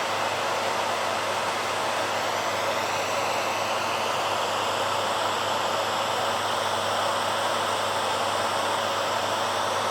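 BaByliss hairdryer running steadily: a continuous, even blowing hiss over a faint low hum, the tone of the upper hiss drifting slowly.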